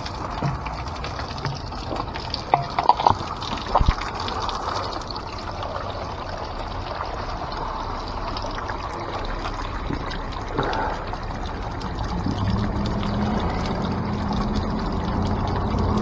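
Spring water falling from the rock into a plastic funnel and plastic water bottle, a steady pouring trickle and splash. A few sharp clicks and knocks of the plastic bottle being handled come about three to four seconds in, and a low steady tone joins the water for the last few seconds as the bottle fills.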